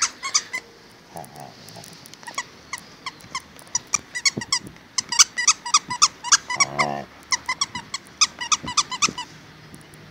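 Akita dog making high-pitched squeaky vocal sounds in quick runs of short squeaks, with a brief low growl partway through; the squeaking stops shortly before the end.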